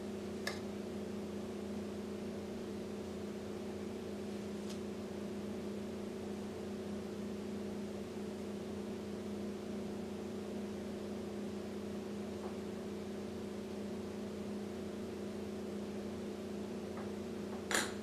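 A steady electrical hum, with a few faint light clicks of a metal spoon against the metal filter basket of a stovetop espresso maker as ground coffee is spooned in.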